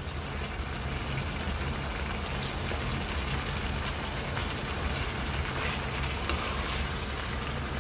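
Chicken curry masala sizzling steadily in a wok over a medium flame, with a few faint clicks as pieces of par-boiled potato are added. A steady low hum runs underneath.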